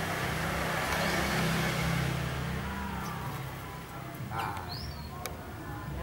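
A motor vehicle passing, its engine hum and road noise swelling about a second in and fading away. A brief high chirp and a sharp click follow near the end.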